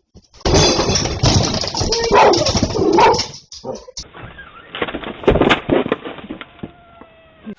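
A dog vocalizing, with drawn-out bending calls among noisy sounds. The sound changes abruptly about four seconds in to quieter, scattered noises.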